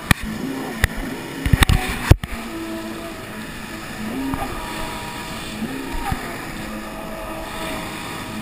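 Jet ski engine running under throttle, its pitch rising and falling several times as the throttle changes, over the rush of water and spray. Several sharp thumps in the first two seconds.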